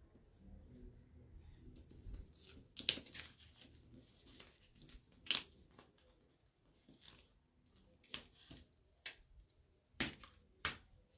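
Crinkling and crackling of a sticky adhesive stencil transfer sheet as it is handled, peeled up and pressed back down, with a series of sharp crackles. The loudest come about three and five seconds in and twice near the end.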